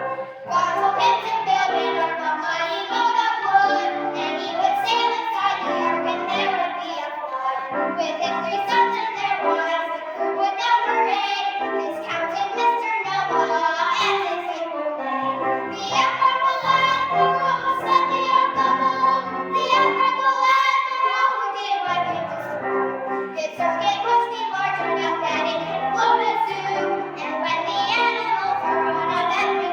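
Children singing a song together with musical accompaniment.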